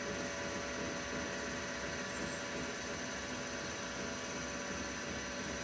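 Tormach CNC lathe turning an aluminium bar dry, without coolant: a steady cutting noise with a constant high whine from the spindle drive.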